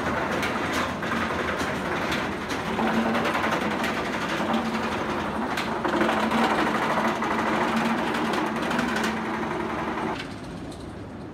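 Lift hill chain of Tatsu, a B&M flying roller coaster, clattering as it hauls a train up, with rapid clicking from the chain and anti-rollbacks over a low hum. The sound falls off about ten seconds in as the train moves on.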